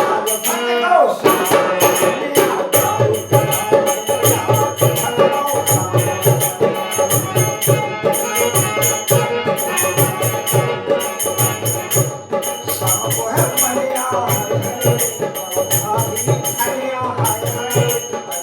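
Instrumental passage of a Bundeli dhimrayi folk song: a steady beat of jingling hand percussion over low drum strokes, with a melody line running over it.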